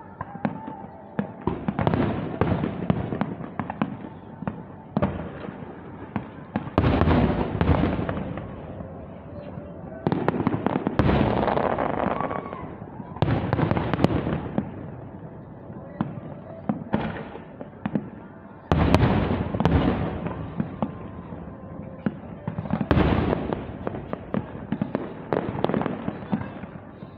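Aerial fireworks bursting: deep booms every few seconds, each trailed by a rush of sharp crackling.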